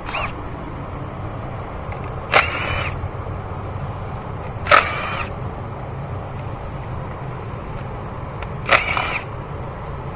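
Three brief metallic tool noises, each ringing for about half a second, over a steady low hum: a 10 mm socket being worked on the ignition coil bolts.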